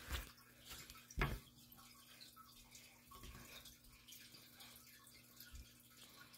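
Quiet handling noise: two soft knocks about a second apart near the start, then faint rustling and small ticks.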